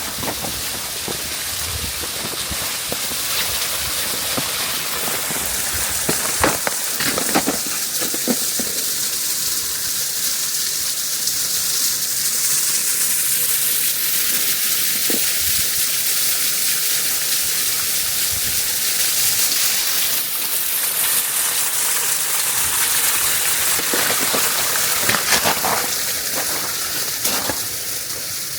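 Steady rush and hiss of water pouring down a partly frozen waterfall, with a few sharp clicks about seven seconds in and again near the end.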